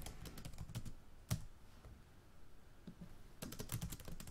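Typing on a computer keyboard: quick runs of key clicks, a quieter stretch with one louder key press about a second in, then another run of fast typing near the end.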